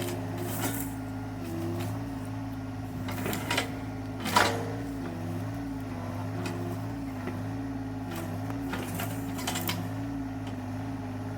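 Excavator's diesel engine running steadily while the machine works at pulling a tree stump, its pitch wavering slightly under load. A few sharp knocks come about three to four and a half seconds in.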